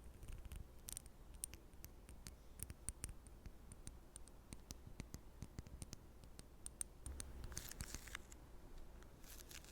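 Close-miked ASMR trigger sounds: faint, sparse sticky clicks and crackles, with two short rustling swishes near the end.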